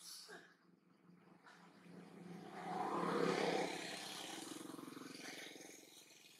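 A motor vehicle passing by: its noise swells to a peak about three seconds in, then fades away. A brief sharp noise sounds right at the start.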